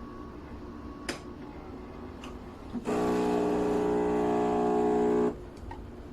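Philips 3200 espresso machine running a steady mechanical buzz for about two and a half seconds, starting and stopping abruptly, after a couple of faint clicks.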